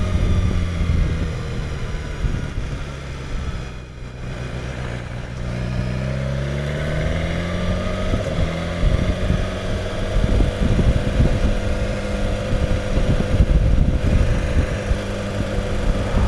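BMW S1000XR's inline-four engine heard from the rider's seat, easing off about four seconds in, then rising in pitch as the bike accelerates and settling into a steady cruise. A low rumble of wind on the microphone runs underneath.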